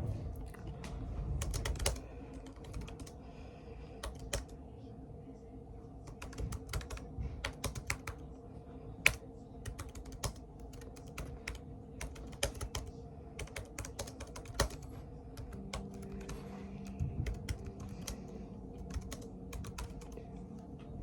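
Typing on a Chromebook keyboard: irregular keystrokes in quick runs with short pauses between them.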